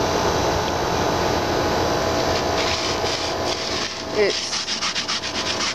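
Gritty scraping on sleet-crusted wooden deck boards: a fast rhythmic rasp that starts about two and a half seconds in, over a steady mechanical hum.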